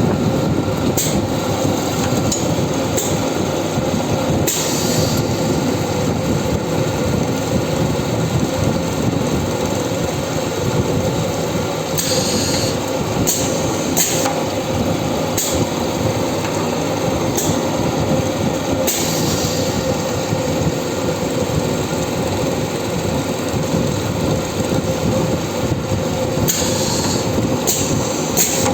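Special-purpose multi-spindle drilling machine running: a steady mechanical drone with a constant hum, and short high clicks and hisses every few seconds.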